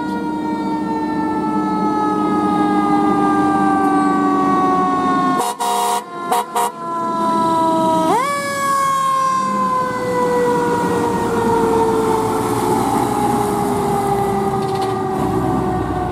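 Fire truck's mechanical siren: it winds up quickly and then coasts slowly down in pitch, cuts out briefly about five seconds in, then winds up again about eight seconds in and slowly falls away. A steady lower tone sounds beneath the first fall.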